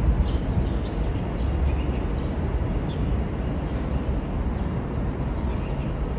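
Steady low outdoor rumble with a few faint, short high chirps scattered through it.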